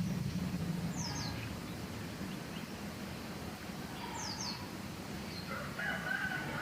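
Birds chirping in the background, short paired downward chirps about every three seconds, over a steady low hum; a thin high whistle-like tone comes in near the end.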